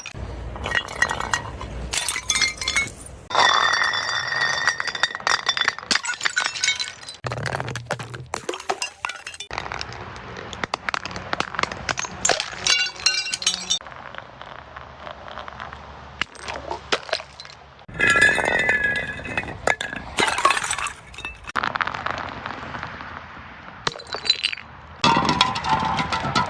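Glass bottles being broken and crushed: a dense run of cracking impacts, with glass shards clinking and ringing briefly. It comes as several separate stretches that start and stop abruptly.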